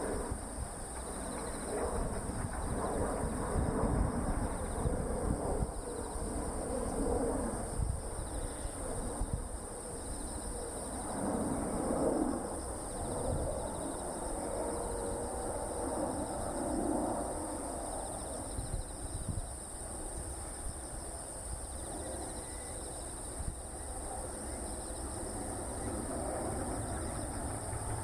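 Outdoor field ambience: a steady high-pitched insect drone over a low, uneven rumble.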